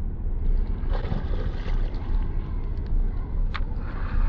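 Steady low rumble of wind on the microphone, with brief splashes as a hooked pike thrashes and swirls at the surface, about a second in and again late.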